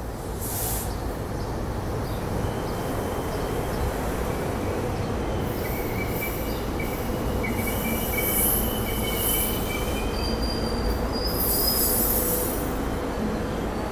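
SEPTA Regional Rail electric train pulling into the platform: a steady rumble of the passing cars. Thin high wheel squeals start a few seconds in, and a higher squeal comes later as the train slows.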